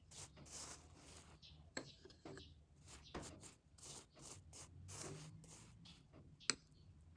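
A spoon spreading a gritty brown sugar and butter paste over a slice of bread: repeated soft scraping strokes, with one sharp click near the end.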